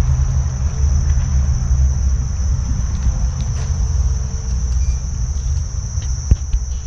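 Insects chirring in a continuous high-pitched drone, over a steady low rumble, with one sharp knock near the end.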